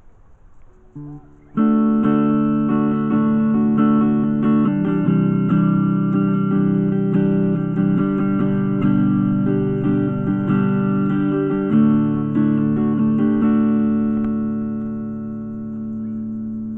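Part-Bunyip T-type (Telecaster-style) electric guitar: a few soft notes, then a strummed chord riff from about a second and a half in, ending on a chord that rings out and slowly fades near the end.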